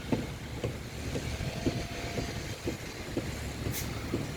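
Steady low rumble of road traffic, with light knocks about twice a second and a brief hiss near the end.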